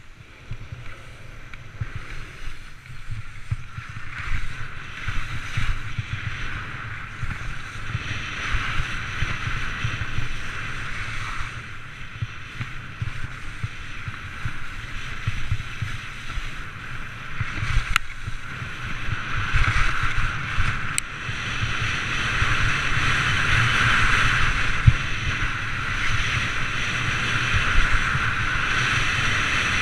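Skis scraping over firm, tracked snow on a downhill run, with wind rumbling on the microphone; the scraping grows louder over the second half.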